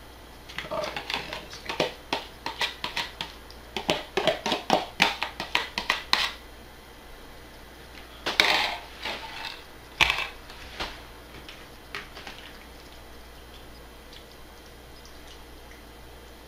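A fork clicking and scraping quickly against plastic food containers for about six seconds, as marinade is scraped out and stirred through sliced goose breast. A louder rustling clatter comes near eight seconds and a sharp knock near ten, as the container and fork are set down, then a few faint clicks.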